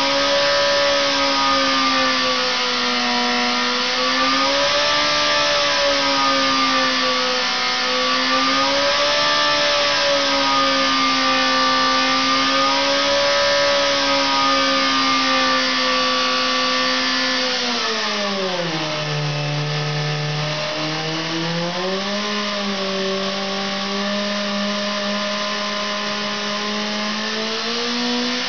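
Engine running on a test-bed dynamometer, holding a steady speed with a slow wavering in pitch. About eighteen seconds in the pitch drops sharply, then climbs back in steps near the end.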